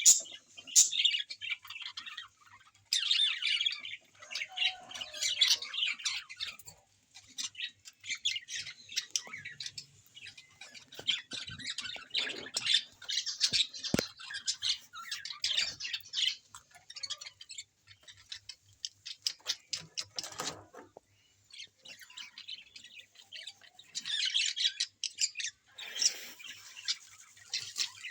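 A group of birds chirping and squawking in busy, rapid bursts, with short lulls now and then and a few sharp clicks mixed in.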